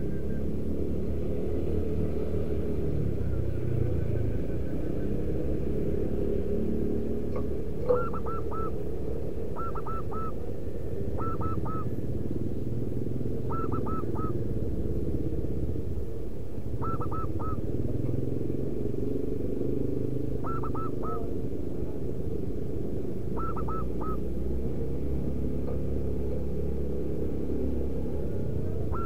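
Zebra dove calling: short groups of three or four quick cooing notes, repeated every two to three seconds from about eight seconds in, over a steady low rumble.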